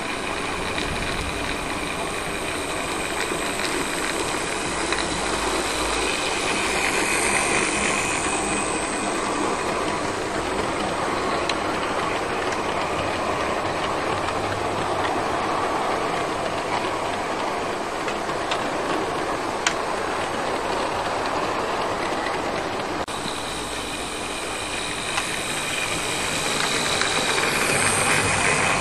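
Model train running along its track: a steady electric motor whine over the rattle of the wheels on the rails, swelling twice as the train passes close.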